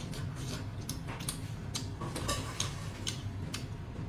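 Irregular small clicks and crackles of a cooked tiger prawn's shell being pulled apart and its meat dabbed in dipping sauce, over a steady low hum.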